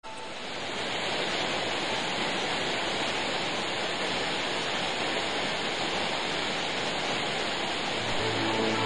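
Steady rush of flowing water from the Krupaja spring, fading in at the start. Music comes in near the end.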